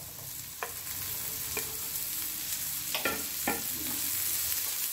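Chopped vegetables sizzling in butter in a frying pan while a spatula stirs them, with a few short taps and scrapes of the spatula against the pan.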